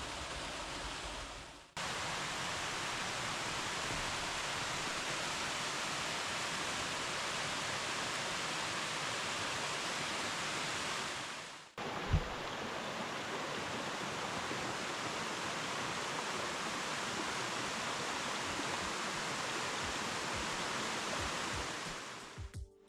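Steady rushing of cascading water from Cataract Falls, cut off briefly twice, about two seconds in and again halfway, with a soft low thump just after the second break.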